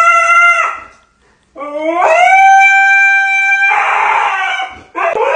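Husky howling with its head raised. One howl ends just under a second in; after a short pause a second long howl rises in pitch, holds steady, then turns hoarse and breaks off near the end.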